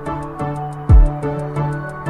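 Background music with a steady beat: a deep kick drum about a second in, quick hi-hat ticks several times a second, and sustained chords underneath.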